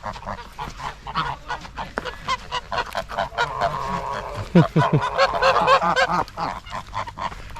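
Several geese honking over and over, the calls crowding together and getting loudest about halfway through.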